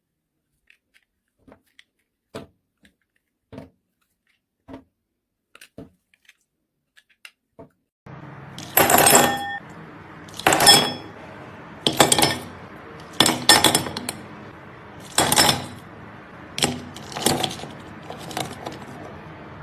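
Metal kitchen utensils clinking against dishes: a few faint light clicks, then from about eight seconds in a louder series of ringing metallic clinks, roughly one every second and a half, over a steady hiss.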